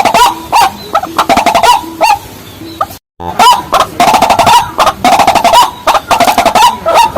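Loud, rapid, overlapping calls of rails, the white-breasted waterhen and its kin, repeated over and over in a steady stream. The sound cuts out completely for a moment about three seconds in, then carries on.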